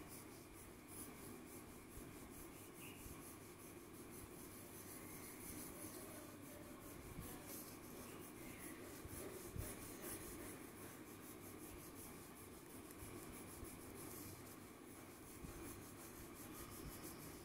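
Pencil sketching lightly on drawing paper: faint, uneven scratching strokes of the graphite lead.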